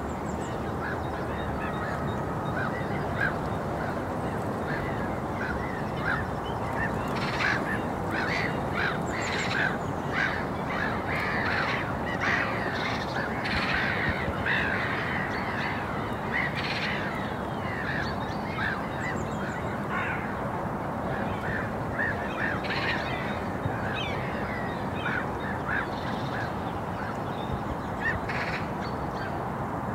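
A flock of birds calling, with many short calls overlapping and busiest in the middle stretch, over a steady low background noise.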